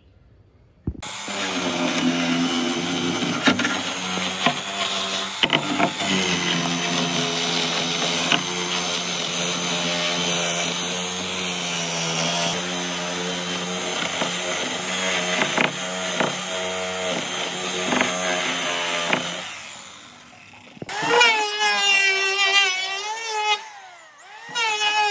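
Power tool running steadily, with scattered knocks as it works the wood. It starts suddenly about a second in and dies away after about nineteen seconds. About a second later it starts again with its pitch wavering up and down under changing load.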